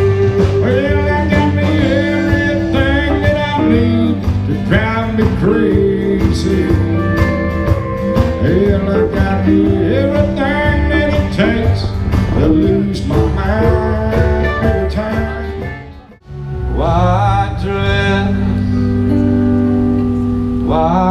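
A live band playing, with a singer over guitars and keyboard and frequent percussive hits. About sixteen seconds in it cuts off abruptly, and a different song starts with singing and guitar.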